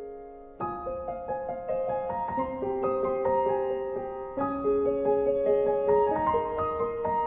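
Background piano music: a fading chord, then a new phrase of single notes entering one after another from about half a second in.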